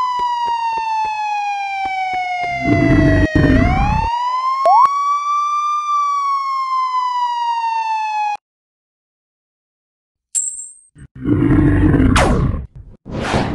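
Wailing alarm siren sound effect, its pitch sliding slowly down, up, then down again, over faint steady ticking, with a rumbling noise burst about three seconds in. It cuts off suddenly, and after a short silence come two loud blasts near the end.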